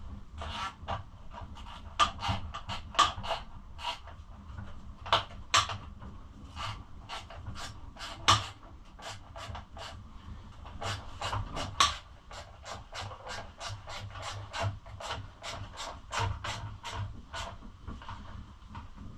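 Ratchet wrench clicking as a bolt is run in: a long series of sharp clicks, about two or three a second, a few louder than the rest.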